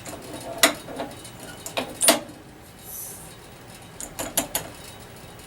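Reloading gear being worked: a series of sharp plastic and metal clicks and clacks as a powder measure is operated and the scale pan is handled. A brief soft hiss about three seconds in is a charge of IMR 4895 rifle powder being thrown.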